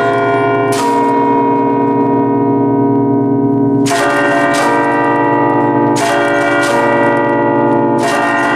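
Ring of eight church bells in B-flat, cast by Luigi and Giorgio Ottolina of Seregno in 1949, played from a hand-struck bell keyboard in a festive ringing. Strikes come in clusters, with the notes ringing on and overlapping. One chord rings on alone from about one to four seconds in, then the strikes come about every second.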